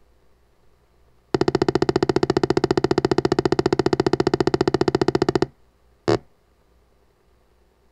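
Apple II one-bit speaker sound effect: a loud, harsh buzzing tone pulsing about fourteen times a second for about four seconds while the striped crushing bar slides down, then one short beep about six seconds in.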